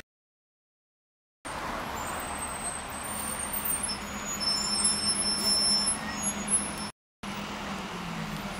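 Road traffic, cars driving past with a steady street rumble. The sound starts after about a second and a half of dead silence and drops out briefly near the end.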